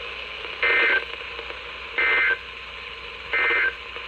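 NOAA Weather Radio sending Emergency Alert System SAME data as three short, identical warbling digital tone bursts about a second and a half apart, over steady radio hiss. Their shortness and placement right after the message fits the end-of-message signal that closes an alert.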